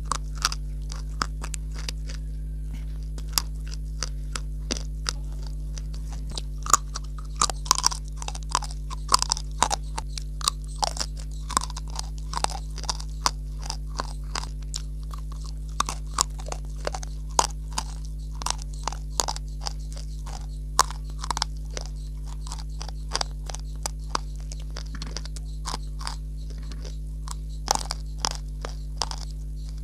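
Close-miked biting and chewing of hard, dry eating clay (multani mitti and slate pencil type): a long run of sharp, irregular crunches, thickest in the first half. A steady low hum runs underneath.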